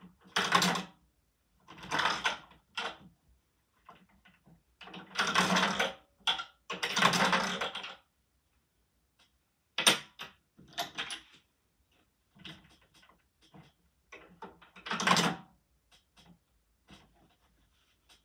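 Plastic Lego brick candy-machine mechanism rattling and clacking as coins are fed in and its parts move, in a series of bursts of about a second each, with a sharp click about ten seconds in.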